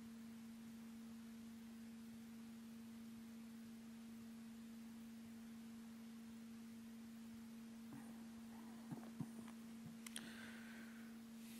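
Near silence with a faint, steady low hum. About eight to ten seconds in come a few faint soft knocks and clinks as altar vessels are handled.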